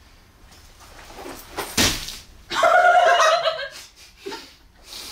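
One sharp thud of bare feet landing on a paper-covered wooden floor after a jump, followed about a second later by a loud vocal exclamation lasting about a second.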